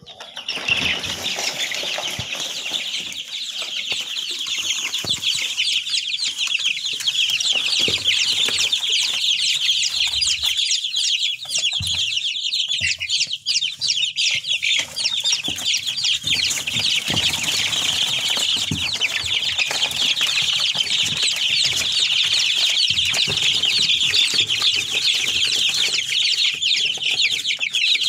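A crowd of young chicks peeping continuously, many high-pitched cheeps overlapping, with occasional soft knocks and rustles underneath.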